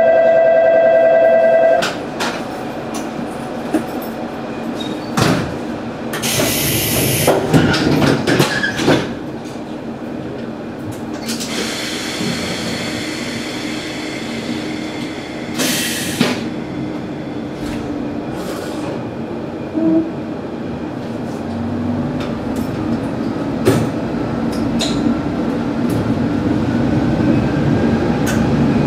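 Diesel railcar idling at a station platform. A steady electronic tone cuts off about two seconds in, and two loud hisses of air come around seven and sixteen seconds in. Near the end the engine note swells as the railcar starts to pull away.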